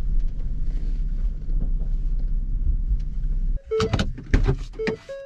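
Ford Transit camper van's engine and road noise, a steady low rumble as the van rolls slowly into a campsite. About three and a half seconds in, the rumble cuts off abruptly, giving way to a few sharp clicks and a repeating two-note tone.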